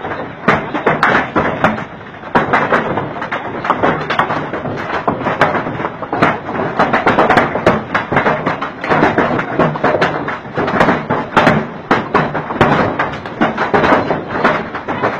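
Large hailstones pelting down in a dense, unbroken barrage of thuds and knocks.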